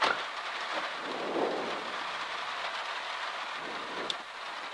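Heavy rain drumming on a car's roof and windscreen, heard from inside the cabin as a dense, even hiss. There is a sharp knock at the very start.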